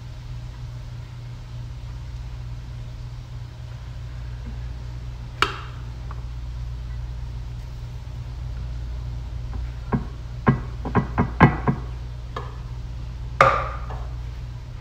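Stainless steel pot being emptied of rice onto a ceramic serving tray: a single knock, then a quick run of metal taps as the last rice is knocked out, and a louder clank near the end, over a steady low hum.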